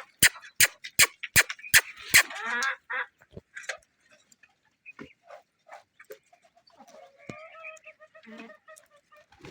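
Domestic hens clucking softly. A quick run of about six sharp knocks comes in the first two seconds.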